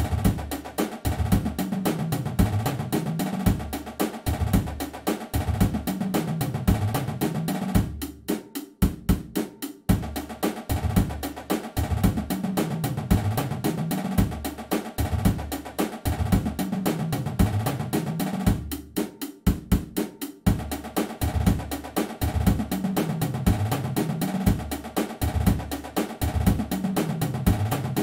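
Marching drumline playing a warm-up groove: fast snare and tenor strokes and rolls over tuned bass drums that split the notes in runs stepping down and back up in pitch. The playing breaks off briefly twice and then starts again.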